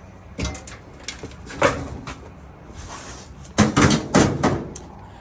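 Knocks and clatter of a Samsung electric dryer's cabinet parts being handled during teardown: a few separate knocks, then a louder burst of clattering about three and a half seconds in.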